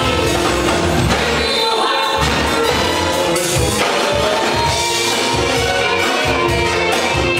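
Live band music with electric guitar, keyboard, drums and singing into microphones, over a steady beat.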